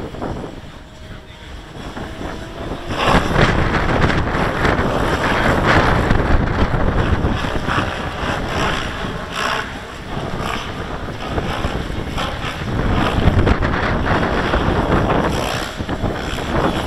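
Strong wind buffeting the microphone in gusts, louder from about three seconds in, over the steady rotor and motor sound of a Gaui X7 electric RC helicopter in flight.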